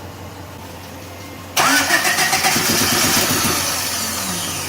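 Car engine cranked over by the starter and catching about a second and a half in, then running as its revs slowly fall away. This comes after a timing belt change, with the timing suspected to be off.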